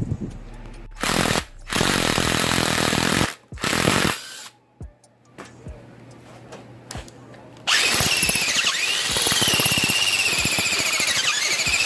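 Power drill boring out a riser mounting hole in metal to half an inch. It runs in a few short bursts, then runs steadily from about eight seconds in with a wavering high squeal as the bit cuts.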